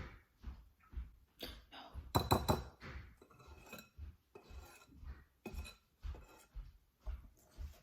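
Batter being stirred by hand in a mixing bowl: the utensil scrapes and clinks against the bowl about twice a second, with a louder run of clinks about two seconds in.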